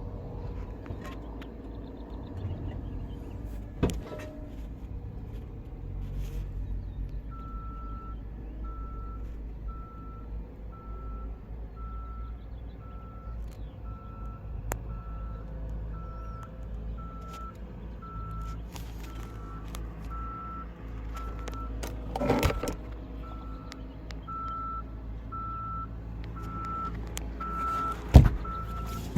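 A reversing alarm beeps at one steady pitch, a little over once a second, starting about seven seconds in, over a steady low engine rumble. A few knocks cut through, the sharpest near the end.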